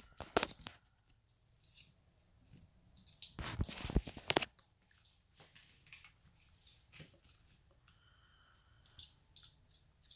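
Scratchy rustling and light clicks of small plastic toys being handled and a brush being pulled through a doll's hair. About three and a half seconds in there is a brief louder burst of rustling.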